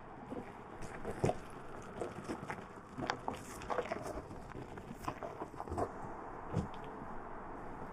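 Tyres of an electric Mercedes-Benz EQS SUV rolling slowly over gravel and loose rocks: irregular crunching with sharp crackles and knocks of stones, several a second, over a low steady hiss.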